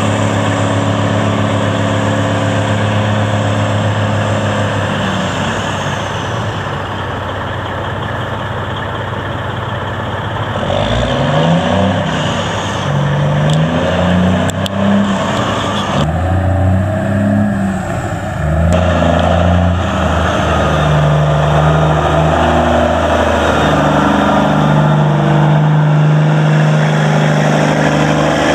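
Cummins N14 six-cylinder diesel of a 1996 Peterbilt 379 semi truck, running steadily at first, then revving up and dropping back several times before settling into a steady, higher-pitched run near the end.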